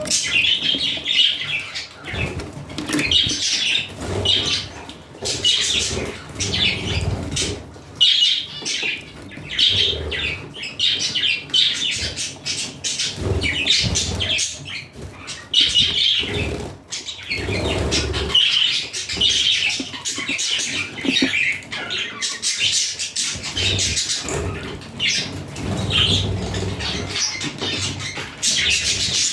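Budgerigars chirping and warbling continuously, with bursts of wing flapping.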